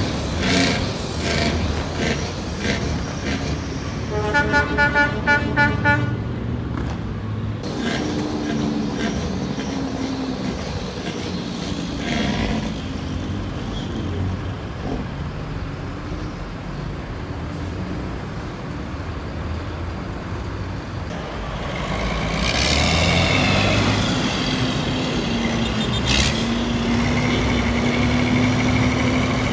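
Heavy semi trucks running, with steady engine and road noise. About four seconds in, a horn gives a quick string of about seven toots. From about 22 seconds in, a truck's engine grows louder as it pulls under load.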